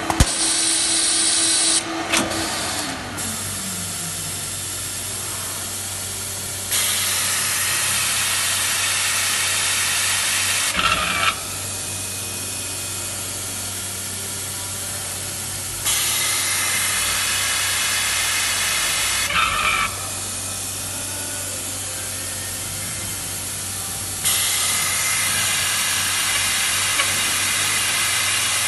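A Taylor CNC capacitor-discharge stud welder cycling: its compressed-air system hisses in three bursts of about four seconds, each ending in a short chirp and a sudden cut-off, over a steady low machine hum. A falling whine dies away about two seconds in.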